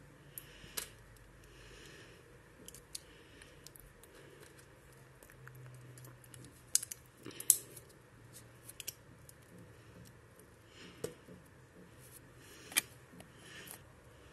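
Plastic clicks and snaps as a small accessory is fitted onto a Ninja Turtles Donatello action figure and its joints are handled: a scatter of short sharp clicks, the loudest about seven and a half seconds in.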